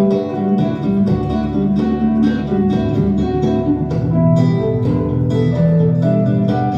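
Acoustic guitar playing an instrumental passage of a song with no voice, plucked and strummed in a steady rhythm.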